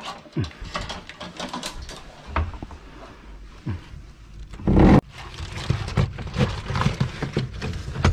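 Scattered clicks and knocks of handling, with one loud thump about five seconds in.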